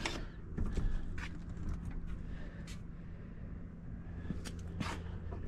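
Rear door of a 1987 Cadillac Fleetwood Brougham unlatched and swung open: a latch click at the start, then a few faint clicks and knocks over a steady low hum.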